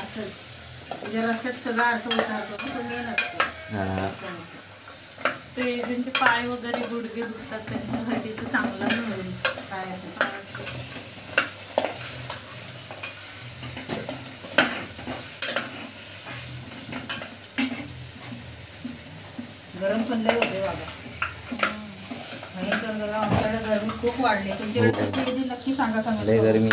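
A ladle stirring goat trotters frying in onion-tomato masala in a pressure cooker, with a steady sizzle and frequent sharp clinks of metal utensils against the pots.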